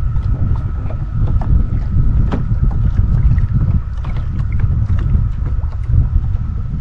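Wind buffeting an action-camera microphone in a loud, gusting low rumble, with a thin steady high tone and scattered light clicks over it.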